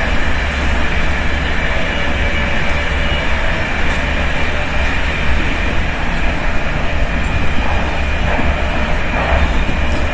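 Intercity train in motion heard from inside a passenger carriage: a steady, loud rumble of wheels on the rails and body noise, with a faint whine and a few light clicks.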